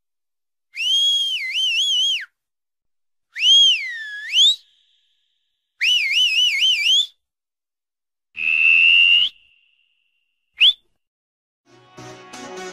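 Human whistling in five short calls separated by pauses: three warbling, swooping phrases, then a held, slightly rising note and a quick upward flick. Background music with a beat comes in near the end.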